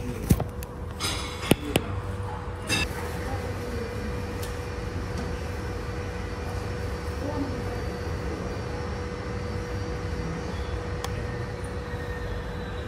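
Handling clicks and knocks on the camera in the first few seconds, then steady airport apron noise: a low rumble with a constant hum, and a faint high whine that slowly falls in pitch in the second half.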